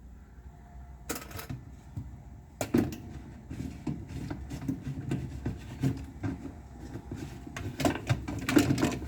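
Irregular hard plastic clicks and knocks of washing-machine agitator parts being handled and pushed to snap into place, with the loudest knocks about three seconds in and near the end.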